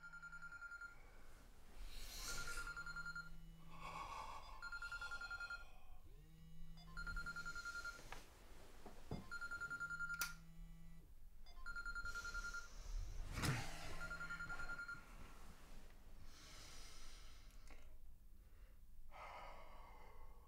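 Samsung mobile phone ringing with an incoming call on a bedside table: a high beep alternating with a low buzz, repeating about every two seconds. A few sharp knocks break in, the loudest about two thirds of the way through.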